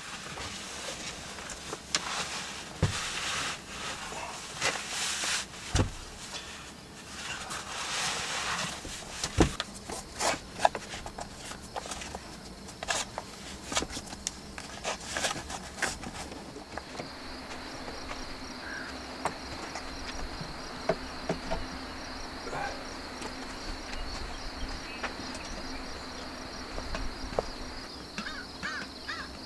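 For the first half, scattered small knocks, clicks and rustling of someone moving about and handling things, including lacing up boots. From about halfway on, a steady high-pitched insect buzz outdoors.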